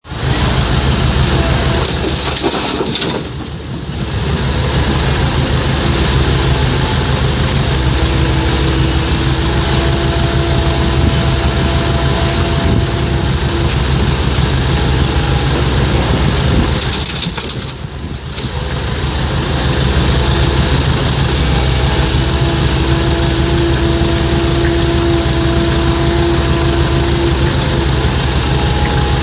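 Komatsu PC130-8 hydraulic excavator's diesel engine working under load, with a steady hiss and a hydraulic whine that rises and fades as the machine works. The sound drops briefly twice.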